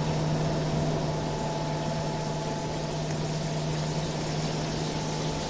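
Air conditioner running steadily: a constant low hum with a couple of faint higher tones over an even airy rushing noise.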